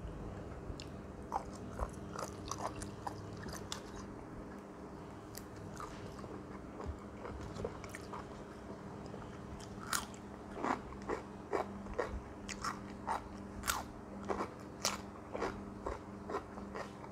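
A person biting and chewing crisp raw cucumber close to the microphone, with wet crunching; the crunches are sparse at first and come thick and fast from about halfway through.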